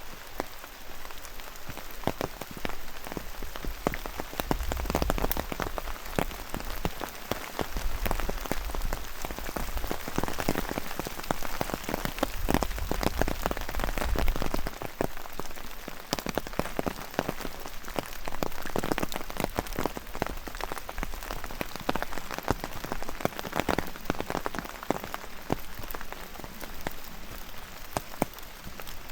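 Rain falling, with many separate drops striking close by, and a low rumble coming and going a few seconds in and again around the middle.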